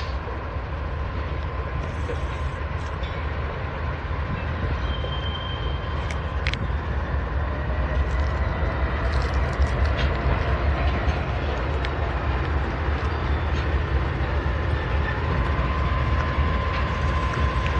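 Three Norfolk Southern diesel locomotives running long hood forward, their engines rumbling steadily as they roll slowly past at low speed, with a faint steady whine and scattered metallic clicks from the train.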